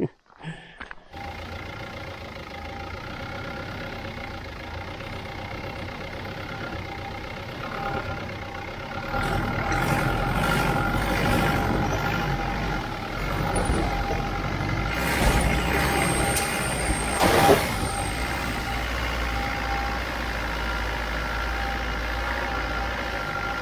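Land Rover engine running steadily under load as it climbs a rough rocky track, with a deeper rumble from the tyres and body growing louder partway through. Two sharp bangs come later as the vehicle knocks over rocks.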